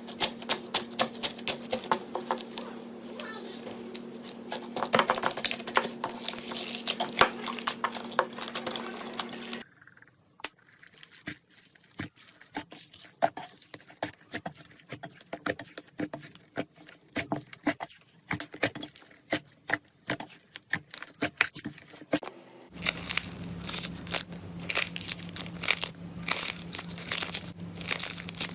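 Slime being pressed, poked and squished by hand, giving a dense run of small clicks, pops and crackles. The texture changes abruptly twice, and a steady low hum lies under the first and last parts.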